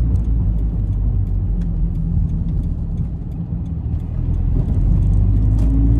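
Toyota 86's 2.0-litre flat-four engine, fitted with an aftermarket muffler, heard from inside the cabin while driving. The engine note eases off briefly a little past the middle during a gear change, then picks up and rises in pitch as the car accelerates.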